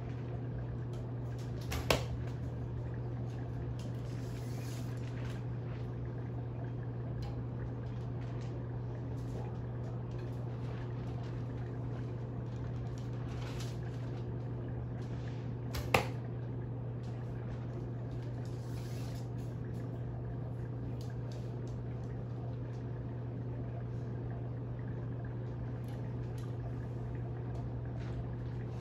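A recurve bow shot twice, each a single sharp snap of the string on release, the shots about fourteen seconds apart. A steady low hum runs underneath.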